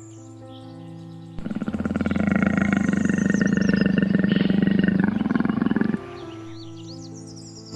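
A large wild animal roaring once, loud and rough, starting about a second and a half in and stopping about four and a half seconds later, over soft background music.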